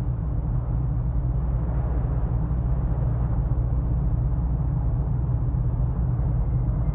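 A steady deep rumble with a faint low hum in it, even throughout.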